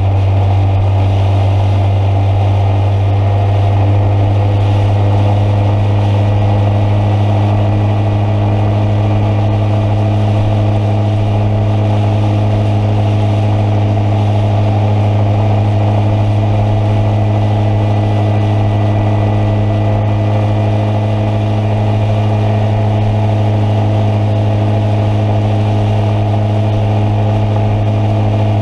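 Engine running at a steady speed: a constant low hum with several steady higher tones over it.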